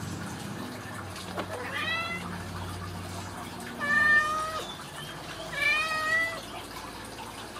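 Ragdoll cat meowing three times, about two seconds apart, the middle meow the loudest.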